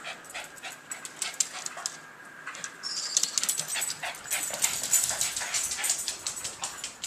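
Recorded thirteen-lined ground squirrel calls playing from a laptop speaker: a thin, high-pitched whistle and rapid chirping starting about three seconds in. A small dog whimpers, and many short clicks sound throughout.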